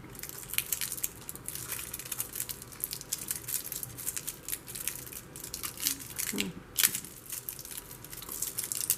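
Plastic battery packaging crinkling and tearing as it is worked open by hand, in a run of irregular crackles and sharp snaps.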